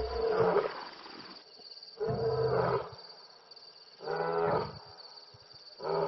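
A series of four deep animal calls, each under a second long and about two seconds apart, with a steady high tone behind them.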